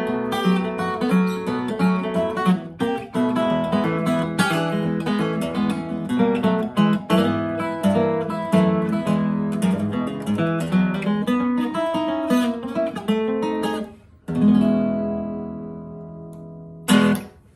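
1930 Gibson L-5 archtop acoustic guitar played fingerstyle with a thumb pick in open D tuning, capoed at the second fret: a picked melody over repeated thumbed bass notes. About fourteen seconds in it lands on a final chord that rings out and fades, and a short, sharp stroke across the strings comes near the end.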